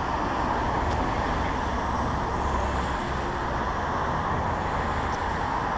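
Steady street traffic noise, even and unbroken, with a low rumble underneath.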